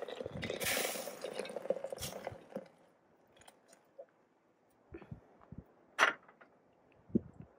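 Hot water poured from a kettle into a Stanley French press, a steady splashing fill that stops about two and a half seconds in. A few seconds later, a few light knocks and one sharp clank as the kettle is set back down on the camp stove.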